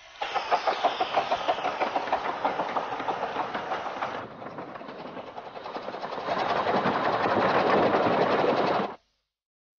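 Miniature steam railway locomotive running with a quick rhythmic beat of about four a second. The sound drops back about four seconds in, builds up again louder, and cuts off abruptly near the end.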